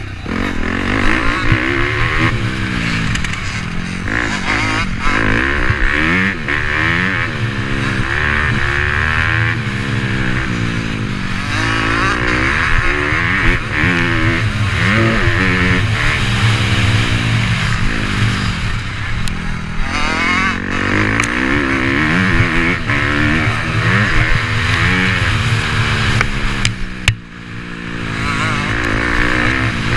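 Motocross dirt bike engines revving up and down, the pitch sweeping repeatedly as they accelerate and ease off, often overlapping, with a brief dip near the end.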